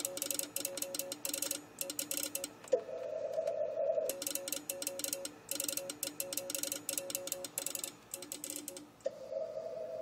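Morse code (CW) being keyed: dot-and-dash tones from the radio, with the relay in an open switching box clicking rapidly in step with the keying. Twice the tone holds steady for about a second or more.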